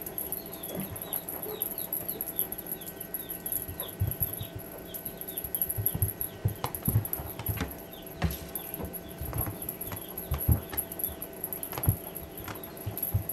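Kitten pouncing and scrambling on carpet after a feather wand toy: soft, irregular thumps and scuffs. A quick run of short, high, falling bird-like chirps fills roughly the first half.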